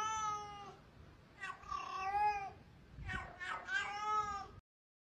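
Kitten meowing four times in drawn-out, high calls, the third one short; the sound cuts off abruptly near the end.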